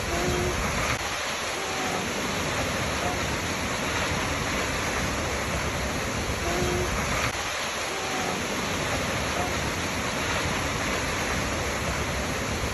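Waterfall rushing in a steady, dense hiss with no breaks. A few faint short tones sound over it and recur about every six seconds, as the recording loops.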